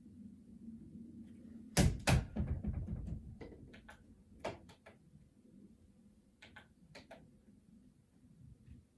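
Mobitec 98x16 flipdot destination display flipping its electromagnetic dots: a loud clattering burst about two seconds in, then scattered single clicks for a few seconds.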